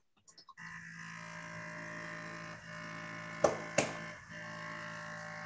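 Electric vacuum pump of a BioChef vacuum blender running with a steady hum, drawing the air out of the sealed blender pitcher before blending; it comes on about half a second in. Two sharp knocks sound near the middle.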